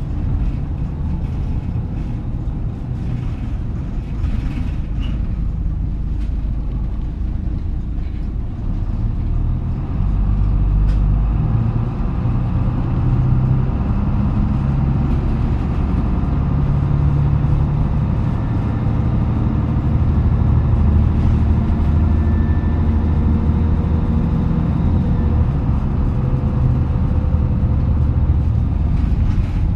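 Engine and running noise of a KK-MJ26HF small route bus, heard from inside the cabin. It gets louder about ten seconds in and then runs on steadily.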